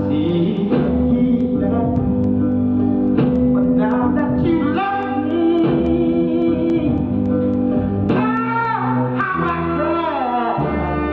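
Music: a song with a singing voice over guitar.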